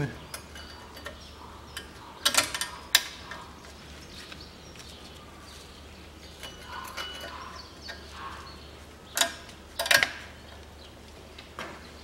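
Sharp metallic clinks and small clicks of steel brake pad plates being fitted into a front disc brake caliper bracket, in two clusters: a couple of seconds in and again around nine to ten seconds in.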